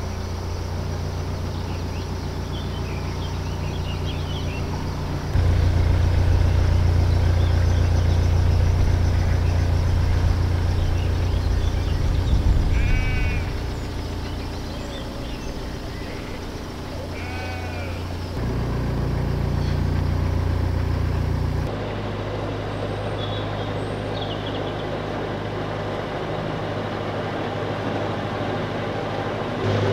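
Narrowboat's inboard diesel engine running steadily at cruising speed, with sheep bleating twice around the middle and a few faint bird chirps.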